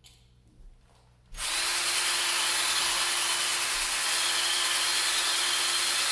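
Cordless drill boring into a concrete wall with a masonry bit, for a concrete screw. It starts about a second and a half in and runs steadily, with a steady whine over the grinding noise.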